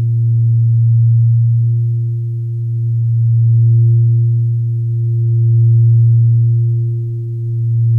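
Relaxation background music: a low, steady drone tone, like a sustained singing bowl, with a fainter higher tone above it. It swells and fades slowly, about every two seconds.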